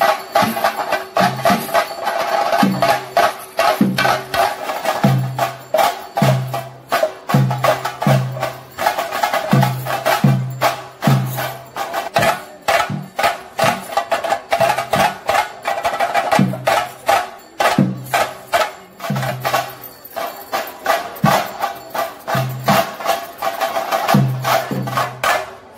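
Theyyam percussion: chenda drums beating a fast, dense rhythm of sharp strokes, with a deep beat falling a little more than once a second.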